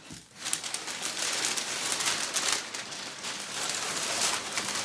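Packing paper being pulled out of a box, crinkling and rustling in a dense crackle that starts about half a second in and goes on without a break.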